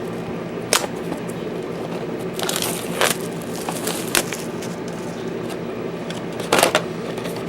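The packaging of a sealed trading-card box is being worked and torn open by hand, giving a few sharp crackles and cracks: stiff packaging that resists opening.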